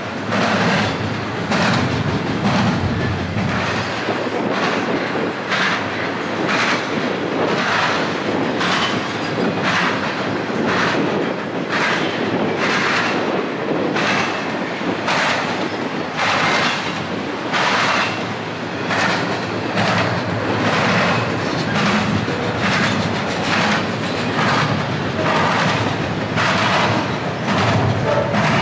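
Double-stack intermodal container train of well cars rolling past, with a steady rumble and the rhythmic clickety-clack of steel wheels over the track, about one or two clacks a second.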